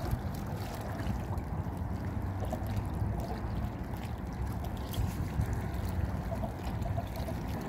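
Steady low rumble of wind buffeting the microphone, with sea water lapping.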